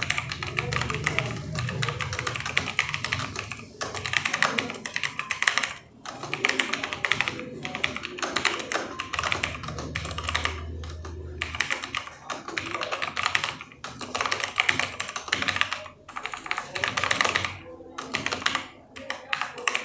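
Typing on a computer keyboard: a fast, continuous stream of keystrokes with a few brief pauses.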